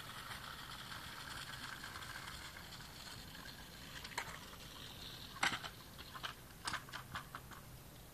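Kick scooter rolling on wet asphalt, a faint steady hiss, then a series of sharp clicks and rattling knocks from about four seconds in.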